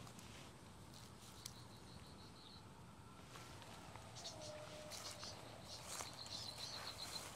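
Faint rural outdoor ambience in tall grass. A high, rapidly pulsing trill comes twice, once about one and a half seconds in and again near the end, with a few soft ticks.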